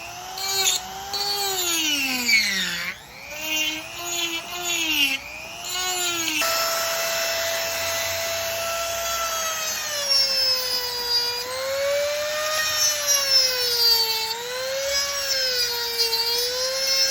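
Handheld rotary power tool whining as it carves wood, its pitch sagging and rising as the bit bites and frees. The sound changes abruptly about six seconds in.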